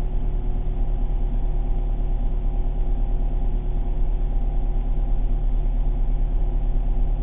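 Steady engine and road rumble inside a car's cabin, with a constant low hum of engine tones.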